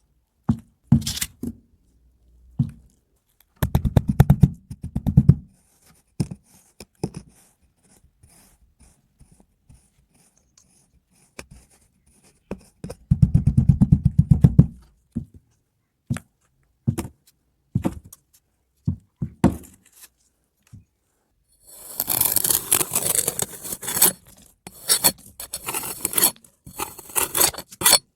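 Kinetic sand being handled, in separate bursts of soft, fine crackling as it is squished and pressed, with scattered single clicks between. Near the end comes a louder stretch of scratchy scraping.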